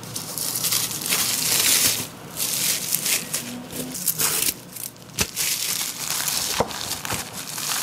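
Plastic packaging bags and bubble bags crinkling and crackling as they are handled and filled, with a couple of sharp clicks in the second half.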